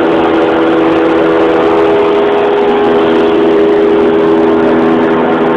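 Single-engine light airplane's piston engine and propeller running steadily, heard from inside the cabin as a loud, even drone with several held tones.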